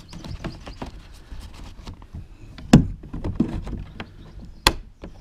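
Round plastic deck hatch on a Galaxy Cruz Fisher tandem kayak being closed: small knocks and rustles as the hatch is handled, then two sharp plastic clicks, one a little before the middle as the lid snaps shut and one near the end as its centre latch is turned.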